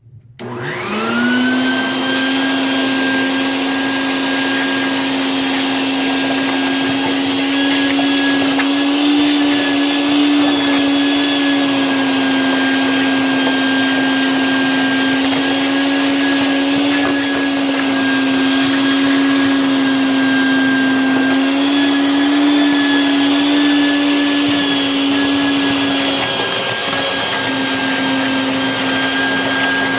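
Electric motor switched on, spinning up within about a second and then running steadily with a constant whine.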